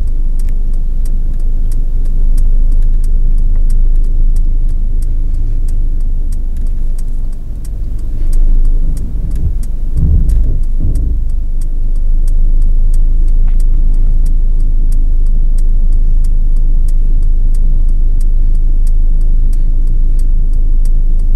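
Steady low rumble of a car on the move, heard from inside the cabin, with a brief louder swell about ten seconds in.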